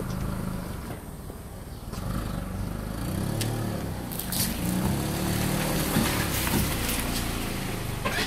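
Mitsubishi Lancer sedan's engine running while parked, heard from behind near the exhaust, its pitch rising and falling a little in the second half.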